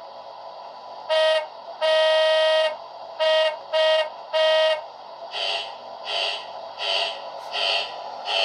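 Chicago 'L' rapid-transit train horn sounding in a pattern: one short blast, one long blast, then three short blasts. It is followed by the train's warning bell ringing steadily about every three-quarters of a second.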